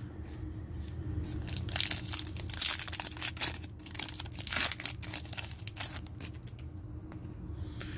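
Foil Topps Chrome card pack wrapper crinkling and tearing open by hand: a dense run of quick crackles and rustles from about a second in, dying down after about six seconds.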